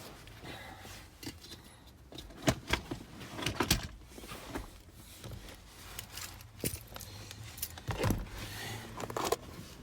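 Scattered metallic clinks, clicks and light knocks from tools and parts being handled while a steering wheel is refitted, the sharpest about two and a half seconds in, around three and a half seconds in, and again near eight seconds.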